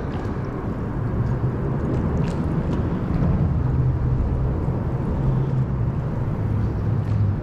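Steady low rushing of river water pouring over a dam, with a few faint clicks.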